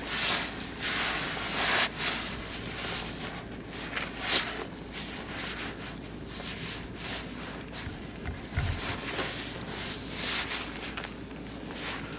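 Oak and beech wood fire in a barbecue grill crackling and popping irregularly over a low hiss, with a cluster of louder crackles in the first few seconds and another burst around the middle.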